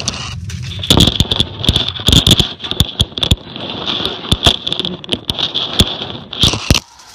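Automatic car wash heard from inside the car: a steady spray hiss with many irregular sharp slaps of the washer's hanging cloth strips and water against the body and glass. It drops away just before the end.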